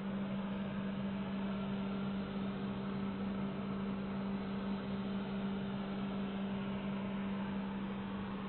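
Handheld hair dryer running steadily: an even rush of blowing air over a constant motor hum.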